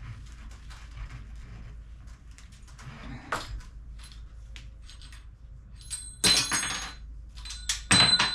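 Small metal bike parts from the stem and headset being handled, with light clicks and rattles, then two loud metallic clatters with ringing, about six and eight seconds in.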